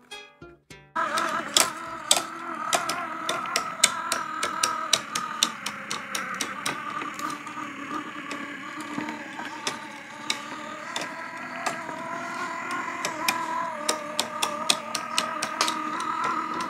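A 3D-printed three-axis tourbillon mechanism running under its motor, from about a second in: a steady, slightly wavering whine of motor and plastic gearing, with frequent irregular clicks from the gears and escapement. Before it, music plays briefly.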